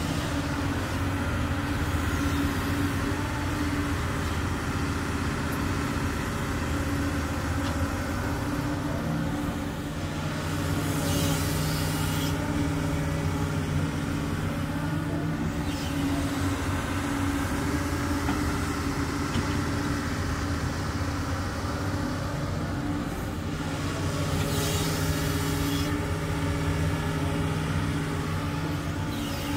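Doosan DX200 crawler excavator's diesel engine running steadily as it works, its note growing stronger twice under load, each time with a short hiss.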